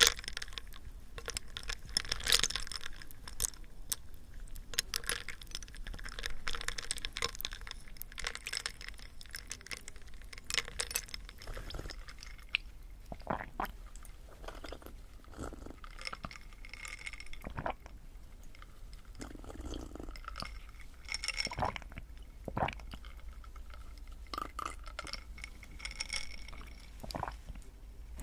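Close-miked ASMR trigger sounds: irregular taps and clicks on hard objects, several with a brief ringing tone like tapped glass.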